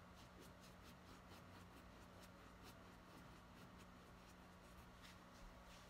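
Faint scratchy strokes of a paintbrush rubbing on canvas, about four a second, thinning out in the second half, over a low steady hum.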